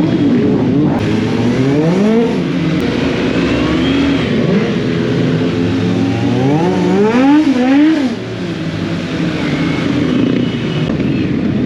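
Motorcycle engine revving up and easing off while riding, its pitch climbing and falling several times, with the longest climb ending in a sudden drop about eight seconds in as the throttle is closed or a gear is changed.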